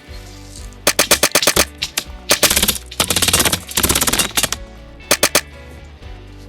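Airsoft guns firing in rapid bursts: a run of about seven shots near the start, a long, dense stretch of fast fire in the middle, and a short burst of three near the end. Background music plays underneath.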